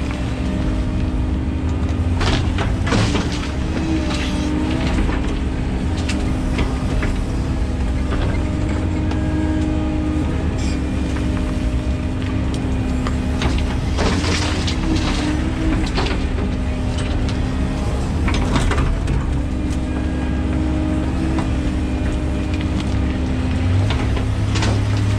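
13-tonne excavator's diesel engine and hydraulics running steadily under load while digging and slewing, with a few short scrapes and crashes as the bucket breaks into the soil heap and tips spoil into a tipper lorry.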